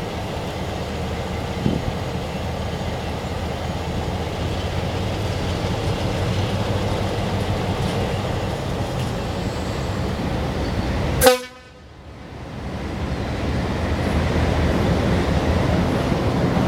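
Diesel locomotives running steadily as they pull in. About eleven seconds in comes one brief, loud horn toot.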